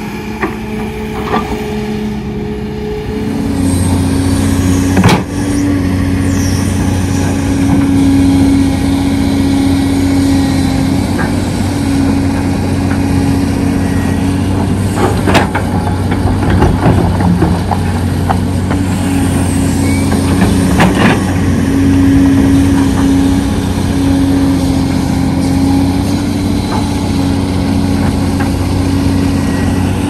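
Heavy diesel engine of construction machinery running steadily, starting about three seconds in, with a few brief sharp sounds over it.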